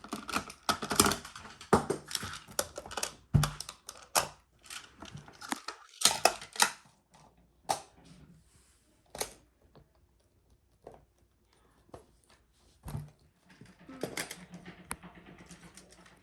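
Plastic magnetic building tiles clicking and clacking as they are snapped together and handled. The clicks come thick and fast at first, thin out to a few scattered ones, then pick up again near the end.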